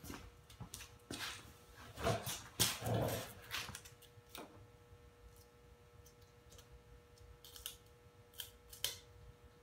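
Scattered crackles, rustles and light scrapes of vinyl film and its backing being handled and pressed by hand onto a motorcycle's side panel. The handling is busiest and loudest about two to three seconds in, with a few more short scrapes near the end.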